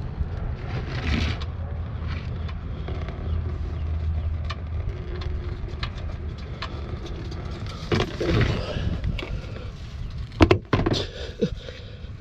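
Wind buffeting the microphone as a steady low rumble, with scattered clicks and knocks from handling tools and parts; the sharpest, loudest knock comes about ten and a half seconds in.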